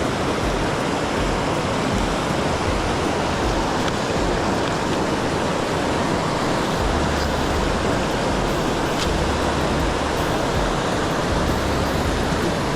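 Mountain stream rushing steadily over rocks, a constant even wash of water noise.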